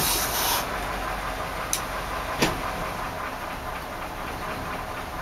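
Carbureted 5.0-litre V8 of a 1981 Ford F100 running just after a restart, cold after sitting unused for a long time, with the throttle worked to keep it from stalling. A short hiss comes right at the start and a couple of sharp clicks come a second or two in.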